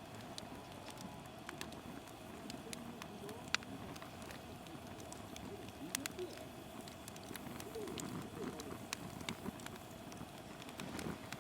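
Softwood (conifer) firewood burning in a fire pit, crackling with scattered sharp pops, the loudest about three and a half seconds in, over a low steady rush of flame.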